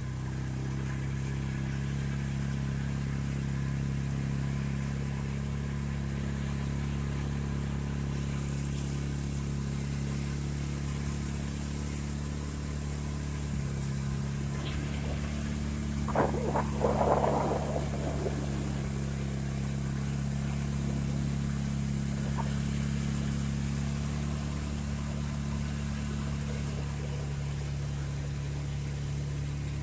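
Polaris utility side-by-side's engine running at a steady low speed, a constant drone. About halfway through there is a short, louder sound over it.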